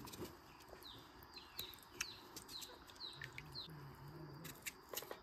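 A small bird calling faintly in a series of short, high, falling chirps, roughly two a second, for about three seconds.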